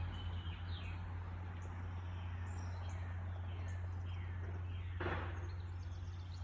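Garden birds chirping and singing, a string of short falling chirps, over a steady low hum. A brief louder rustle-like burst comes about five seconds in.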